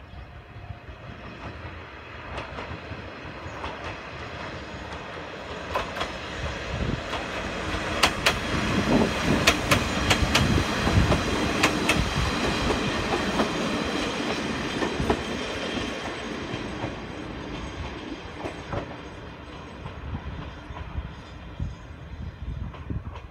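Watarase Keikoku Railway Torokko Wasshi diesel railcar pulling slowly past, its wheels clicking over the rail joints. The sound builds to its loudest about halfway through, as the car passes close, then fades as it moves on toward the platform.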